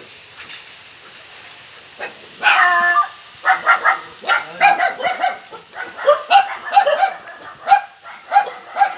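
A dog yelping: one longer yelp about two and a half seconds in, then a quick, uneven run of short high yips and whines.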